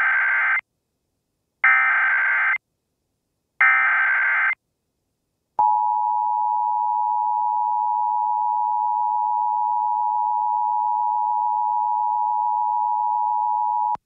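Three Emergency Alert System SAME header data bursts, each about a second long, carrying an Emergency Action Notification, followed about five and a half seconds in by the steady two-tone EAS attention signal (853 and 960 Hz together).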